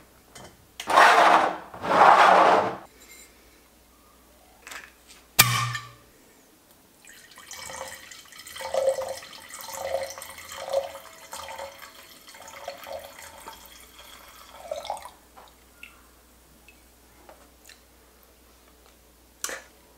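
Red wine poured from a glass bottle into a wine glass, glugging in a run of gurgles that lasts about eight seconds. Before the pour there are two loud rushing noises of about a second each, then a single sharp knock.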